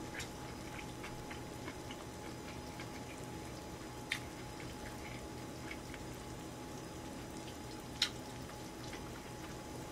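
Sukiyaki simmering in a pan on a portable gas burner: a low steady hiss with a few soft clicks and pops, two sharper ones about four and eight seconds in.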